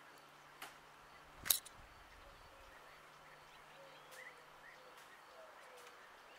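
Faint outdoor ambience with distant birds calling. A sharp click about a second and a half in is the loudest sound, with a fainter click shortly before it.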